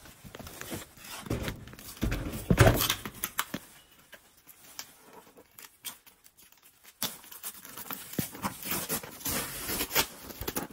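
Cardboard boxes being handled and shifted, with packing tape being picked at and peeled off a box: rustling, scraping and a few knocks, loudest about two to three seconds in, quieter for a few seconds, then busy with quick rustles again near the end.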